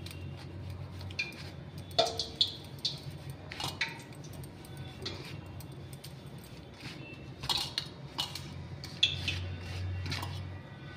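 Hands rubbing oil into dry flour in a stainless steel bowl: scattered light clinks as bangles and fingers knock against the steel bowl, over a low steady hum.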